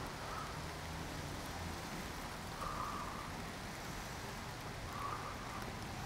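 Rain falling steadily, an even patter with no other clear event.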